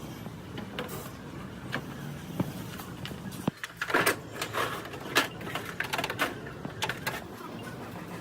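A steady low hum stops suddenly about three and a half seconds in, followed by a run of knocks, bangs and scraping clatter from hands-on truck repair work.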